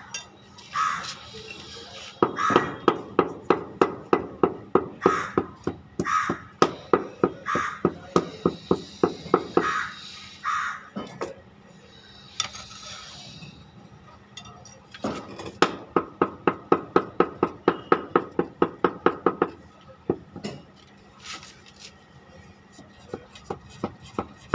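Rapid tapping of a wooden handle on ceramic wall tiles to bed them into the mortar, about four taps a second in two long runs. A bird calls now and then in between.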